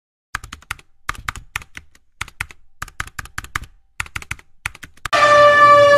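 Keyboard-typing sound effect, quick clusters of key clicks as text types out on screen. About five seconds in, a loud steady pitched tone cuts in.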